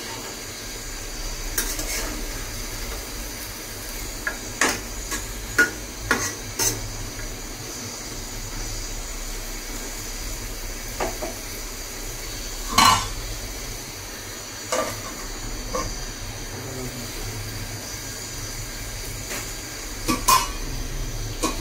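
A metal spoon stirring chicken and potato curry in an aluminium pot, clanking and scraping against the pot a dozen or so times. The loudest clank comes about 13 seconds in. A steady hiss and sizzle of the cooking runs underneath.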